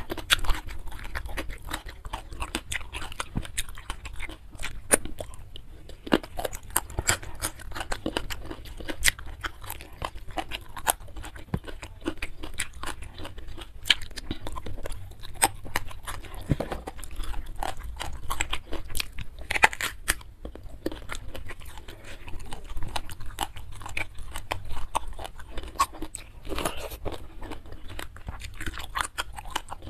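A person chewing and crunching food close to the microphone: a dense, irregular run of small crunches and clicks, with a few sharper louder bites.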